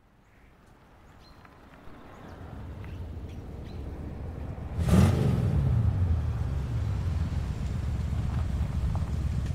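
A car's low engine rumble fading in from silence. About five seconds in there is a loud whoosh as a vehicle goes by, its engine note falling in pitch, and then a steady low engine rumble.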